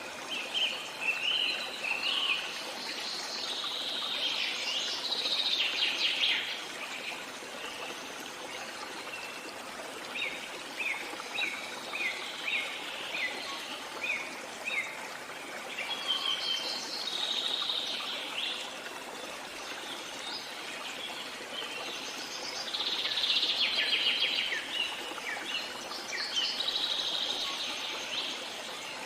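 Several songbirds singing and calling, with bursts of twittering trills and a run of short, evenly spaced chirps about a third of the way through, over a steady background hiss.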